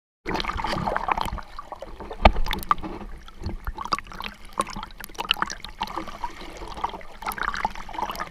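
Seawater splashing and slapping close up in the surf, an uneven run of splashes and sharp knocks, the loudest a hard slap a little over two seconds in.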